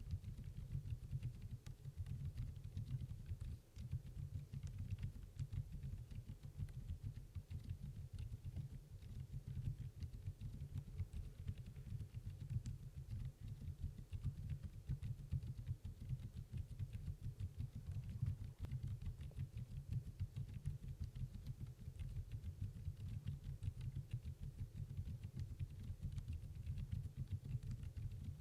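Continuous typing on a Redbean The Better A1 mechanical keyboard with Outemu Lime silent linear switches: quiet, damped keystrokes in a steady, dense patter.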